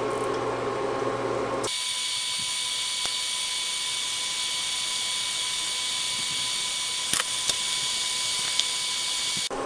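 Dough strips deep-frying in hot oil, a steady sizzle. About two seconds in the sound changes abruptly, losing its lower part and leaving a high, hissing sizzle. A couple of short clicks come near the seven-second mark.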